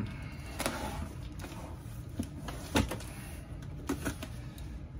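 Box cutter slitting the tape on a cardboard box, with scattered light clicks and taps as the box is handled.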